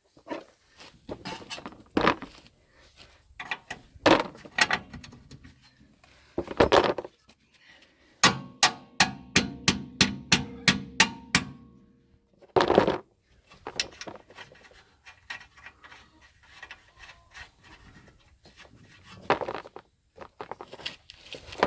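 Metal tools at work on a car's rear suspension: irregular knocks and clanks, and midway a run of about a dozen sharp, evenly spaced strikes at about four a second.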